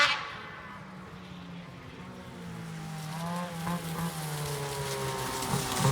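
Ski-Doo 850 snowmobile two-stroke engine, fitted with an MBRP race can exhaust, running at a low, fairly steady pitch. The pitch sags slightly and the sound grows louder toward the end.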